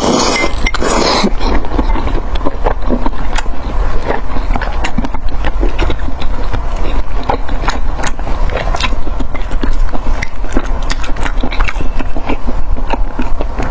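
Close-miked eating: mouth noises of chewing with a dense run of small wet clicks and smacks.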